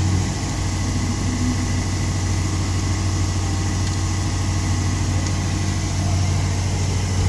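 CNC vertical machining center running with a steady, unchanging low hum and a hiss above it.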